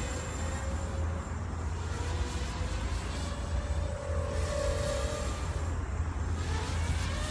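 Graupner Alpha 250 racing quadcopter's electric motors and propellers whining in flight, the pitch drifting up and down as the throttle changes and rising near the end.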